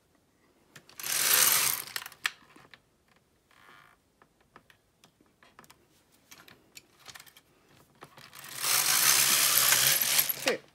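Carriage of a Silver Reed LK150 mid-gauge knitting machine pushed across the needle bed twice, knitting two plain rows: a loud rushing mechanical clatter about a second in, then a longer pass near the end. Light clicks and taps come in between.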